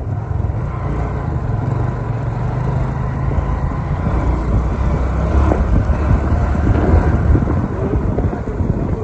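A car driving on a rough road: a steady low engine and road rumble that grows a little louder past the middle.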